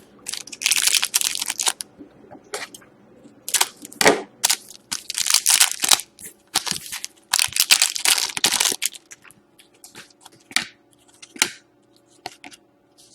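Hockey card pack wrapper being torn open and crinkled, with the cards handled and slid out: a run of short rustles and crinkles that thins to a few light clicks in the last few seconds.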